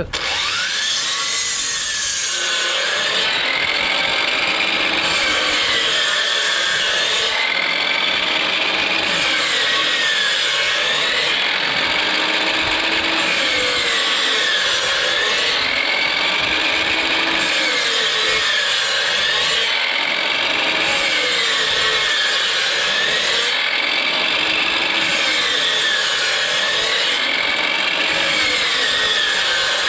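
Power saw running without a break while it makes a series of side-by-side kerf cuts to a set depth in a wooden post, clearing a half-lap notch. The blade's pitch dips and recovers with each pass, about every four to five seconds.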